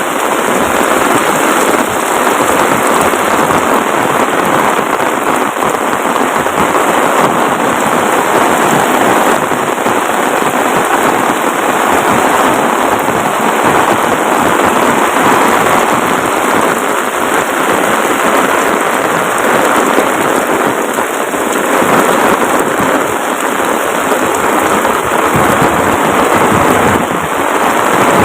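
Heavy, steady downpour of rain pattering densely on surfaces, with no letup.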